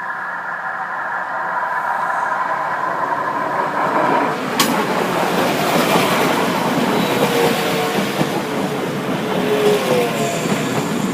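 Class 172 diesel multiple unit passing over a level crossing. The rush and clatter of its wheels on the rails builds from about four seconds in, with a thin wheel squeal later on.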